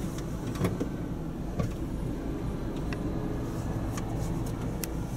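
Car engine idling, heard from inside the cabin as a steady low hum, with a few scattered light clicks and knocks.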